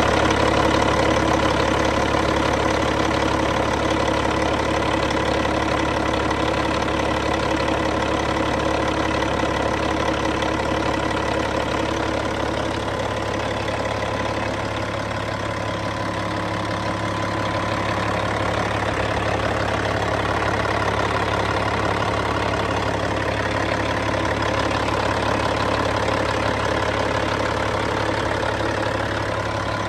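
Caterpillar C15 inline-six diesel truck engine idling steadily, heard up close in the engine bay.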